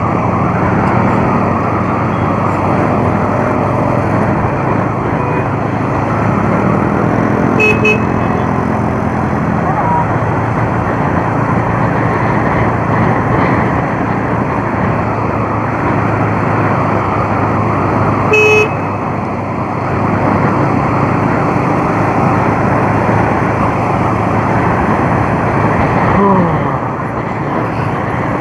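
Single-cylinder Bajaj Avenger motorcycle riding at about 55–60 km/h: steady engine running under a rush of wind and road noise, with traffic around. A short horn toot sounds about 8 seconds in and a louder one about 18 seconds in.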